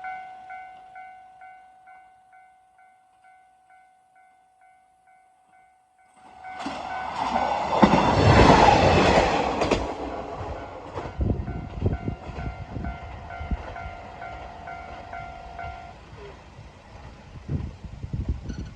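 Japanese level-crossing alarm bell ringing in a steady two-per-second "kan-kan" pattern. About six seconds in, a train arrives and rushes past fast and loud, and its wheels then clack repeatedly over the rail joints. The alarm stops a few seconds before the end.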